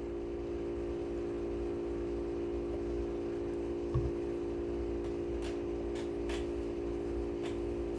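A steady hum fills the room throughout, with a soft knock about four seconds in and a few faint clicks after it, the small sounds of dowel rods being handled and glued into guitar bridge mounting holes.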